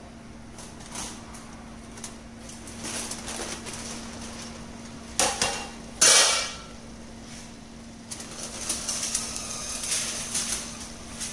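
A steel plate used as a pot lid is lifted off and clanks twice against metal about five and six seconds in. Then aluminium foil crinkles as it is peeled off the pot.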